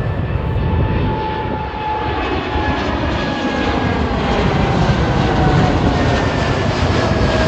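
Jet airliner passing close by, its engines giving a loud, steady rumble and roar, with a whine that slowly falls in pitch as it goes past.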